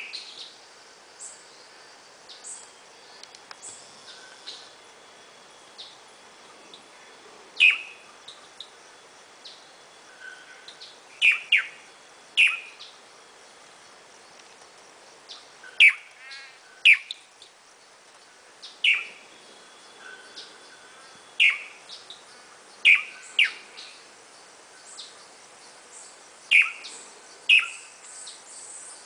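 Swallow-tailed manakin (tangará) calling: a series of short, sharp, down-slurred notes, loud and spaced a second or two apart, some in quick pairs, with fainter chirps of other birds behind.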